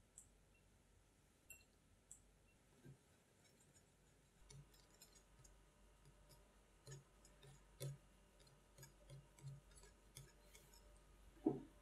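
Wire whisk stirring thick cream-cheese batter in a glass bowl: a few faint clicks at first, then from about four seconds in a run of soft, irregular ticks of the wires against the glass, with one louder knock near the end.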